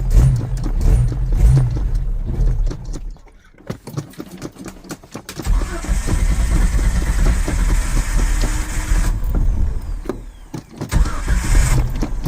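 1995 Ford Ranger's starter cranking the engine in three long tries with short pauses between, the engine turning over but not catching: a morning no-start.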